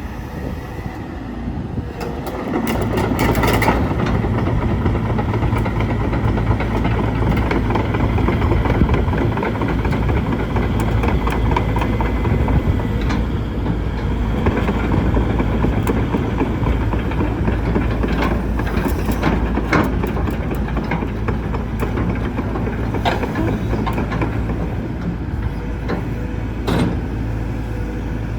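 Hitachi ZX135USK-6 excavator working, its diesel engine running steadily and getting louder about two and a half seconds in. A few sharp knocks come through near the start and again later on.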